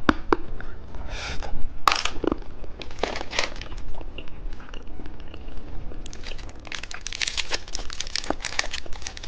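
Plastic candy wrapper being handled and crinkled, in irregular crackly rustles that become denser and continuous about two-thirds of the way through.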